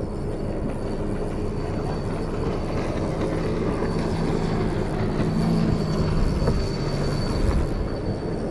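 A boat engine droning steadily, growing louder in the middle and easing off near the end, over wind buffeting the microphone and water lapping.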